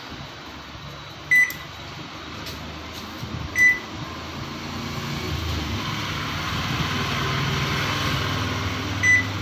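LG microwave oven beeping three times as its keypad is pressed, then running with a steady hum that builds from about halfway through. This is the oven working on its freshly replaced keypad.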